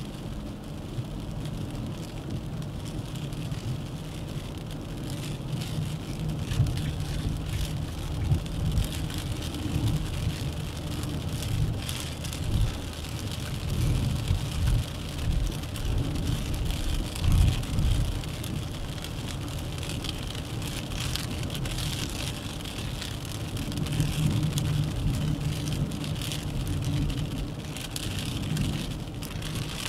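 Car driving on the road, heard from the cabin: a low tyre and road rumble that swells and fades, with a few louder knocks in the middle, under a steady hiss.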